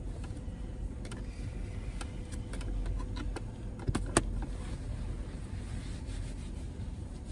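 Steady low rumble inside a car cabin, with a few small clicks and rustles as a wet wipe is pulled from its plastic container and handled; the sharpest click comes about four seconds in.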